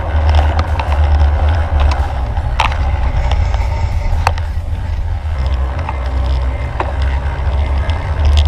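Bicycle and trailer tyres rolling steadily over a paved path, with a strong low rumble of wind buffeting the microphone and a few sharp clicks from the wheels and frame.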